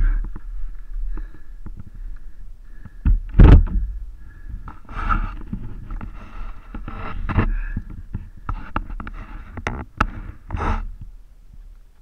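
Knocks, scrapes and clatters as a fallen Honda CBF150 motorcycle is heaved upright out of the mud, with a heavy thump about three and a half seconds in as the loudest sound and sharp clicks near the end, over a steady low rumble.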